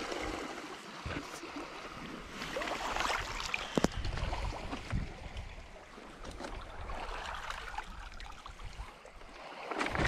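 Water splashing and sloshing in uneven swells, with one sharp knock just under four seconds in.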